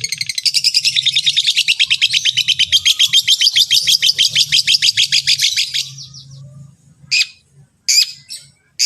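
Long-tailed shrike (cendet) singing a fast, even run of repeated high notes, about ten a second, for some six seconds. Three short, sharp calls follow, each about a second apart.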